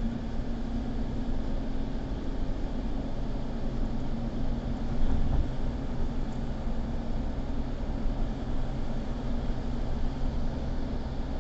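Steady low rumble of a moving vehicle, engine and road noise, with a faint steady hum.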